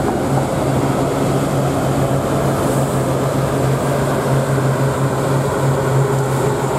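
Diesel engine of a large charter motorcoach running close by as the coach moves off, a loud, steady low hum over engine noise.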